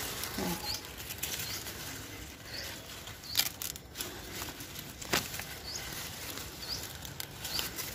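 Corn plant leaves rustling and brushing as a hand works in among the stalks around an ear of corn, with two sharp clicks partway through.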